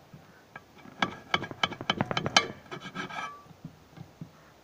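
Knife chopping conch meat on a metal pan lid: starting about a second in, a quick run of about a dozen sharp chops, each blade strike ringing off the metal, followed by a few softer knocks.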